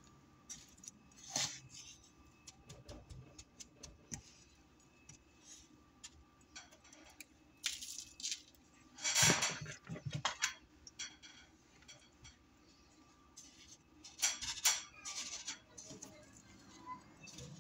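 Scattered soft scrapes, rustles and light taps as breadcrumbs are spread and raw fish fillets are pressed into them on a ceramic plate. The loudest scrape comes about halfway through.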